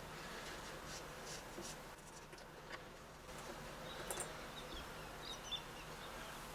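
Faint scraping and light clicks of metal door-lock parts being handled as the lock's plate is taken off.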